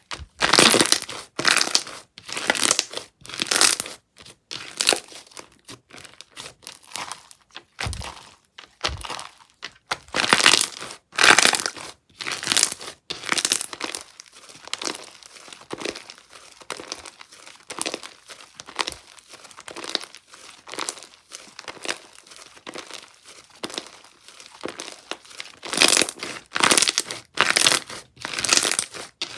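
Thick block-style slime being squished, pressed and pulled apart by hand, giving irregular crackly, crinkly bursts about once or twice a second.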